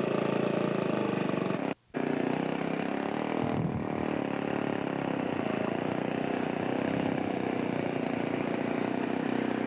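Engine of a radio-controlled scale model aerobatic airplane running steadily. The sound cuts out completely for a moment about two seconds in.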